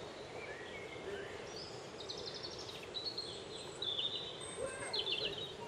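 Small songbirds chirping, with several short, high trilled phrases in the second half, over a steady outdoor background hiss.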